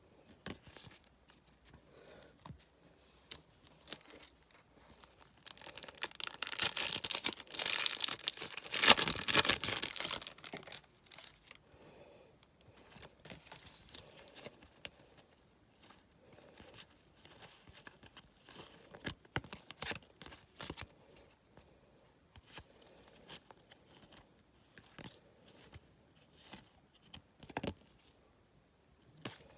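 A Match Attax trading-card packet wrapper being torn open: a loud tearing and crinkling that lasts about five seconds, starting a few seconds in. Softer scattered crinkles and clicks follow as the wrapper and cards are handled.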